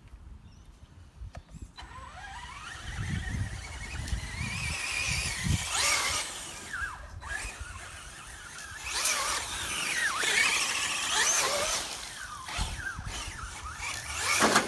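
Electric motors of radio-controlled scale crawler trucks whining, revving up and down in a series of rising and falling whines that grow louder from about two seconds in.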